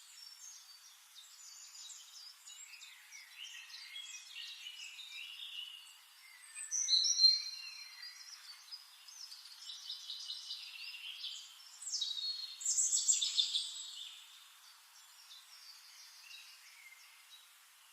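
Wild birds singing and chirping, several calls overlapping in quick trills and twitters. The song is louder about seven seconds in and again around twelve to fourteen seconds, then thins out near the end.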